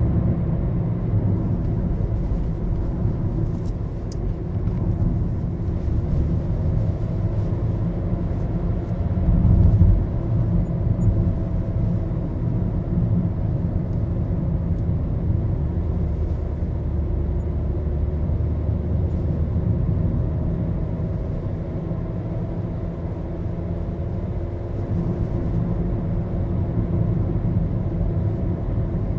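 Cabin noise of a Maruti Suzuki Baleno being driven: a steady low rumble of engine and road. A louder low thump comes about ten seconds in.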